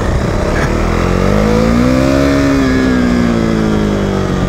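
KTM Duke 390's single-cylinder engine revving while riding on dirt. Its pitch climbs for about a second and a half, then falls away slowly as the throttle eases off.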